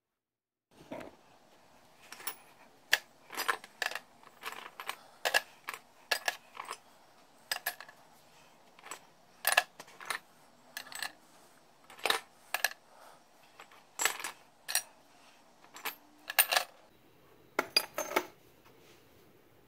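Scrap copper pipe fittings (elbows and couplings) dropped one by one onto a stainless-steel scale platform, clinking sharply against the steel and each other. The clinks come at an irregular pace, about one or two a second, starting about a second in.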